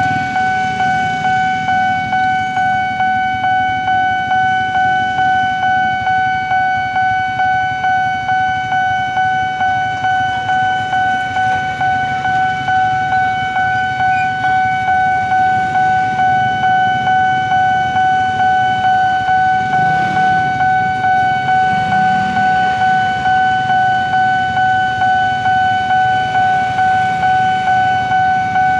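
Railway level-crossing warning bell, an electronic ding repeating evenly about twice a second while the barriers are down.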